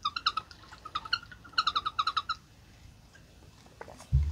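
Waatr PureMax 4D bottle's dense filter cartridge squeaking as water is sucked through it while drinking: rapid runs of high, pitched chirps in three bursts over the first two and a half seconds. A low thump near the end.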